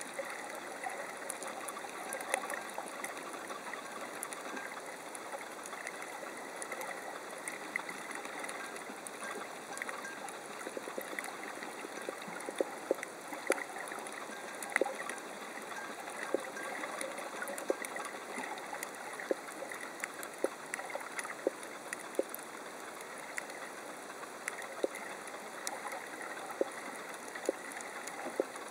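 Underwater ambience on a shallow coral reef: a steady crackling hiss, with sharp clicks about once a second through the second half.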